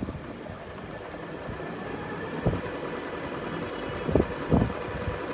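Jaguar JS-670 domestic sewing machine running, sewing a straight stitch with a steady motor hum. A few short knocks come about halfway through and near the end.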